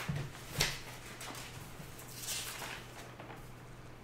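Quiet room tone with a steady low electrical hum. A single sharp click comes about half a second in, and a soft breathy hiss just after two seconds.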